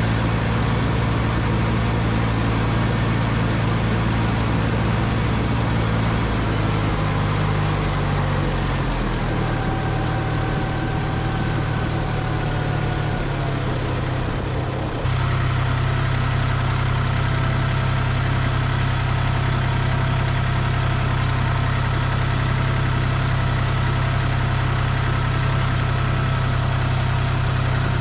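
Ford 1710 tractor's three-cylinder diesel engine running steadily while the tractor drives along. Its pitch drops a little about a quarter of the way in, and the sound changes abruptly about halfway through.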